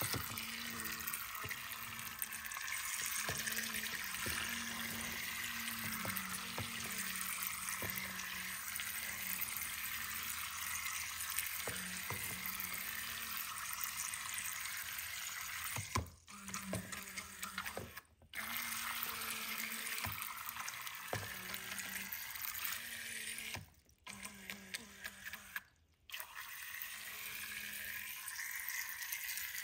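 Two small battery-powered Zuru Robo Boats toy boats running in a plastic tub of water. Their propellers make a steady splashing churn over a faint low motor hum, with a few light knocks as the hulls bump the tub walls and each other. The sound drops away briefly twice.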